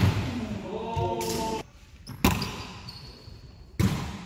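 A volleyball in play being smacked, three sharp hits about a second and a half apart, echoing in a large gym hall. A player lets out a short held call just after the first hit.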